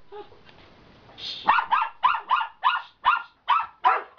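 A dog barking rapidly, about four barks a second, starting about a second and a half in.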